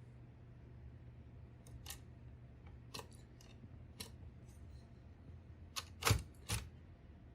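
1948 Royal Quiet DeLuxe portable typewriter's carriage being moved along to a set position, giving a few separate clicks about a second apart and two louder knocks close together near the end.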